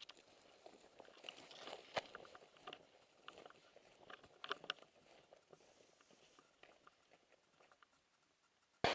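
Faint footsteps crunching over dry leaves, twigs and gravel, with scattered small crackles and rustles of brush. A single sharp thump comes near the end.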